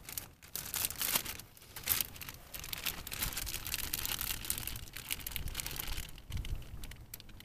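Clear plastic zip-top bag crinkling and rustling in the hands as it is opened and a piece of brined salmon is worked out of it.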